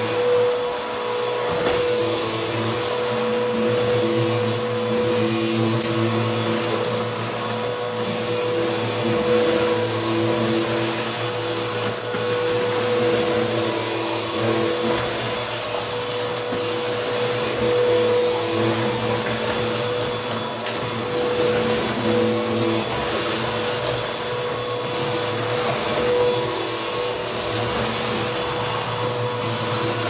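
Bissell upright bagless vacuum cleaner running steadily with a constant motor whine as it is pushed back and forth over a dirty carpet. A few sharp crackles of grit are sucked up about five to seven seconds in.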